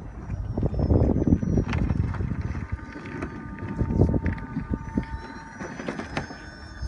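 Model jet turbine whining with its pitch slowly falling, heard over gusty low rumbling noise that swells about one second in and again about four seconds in.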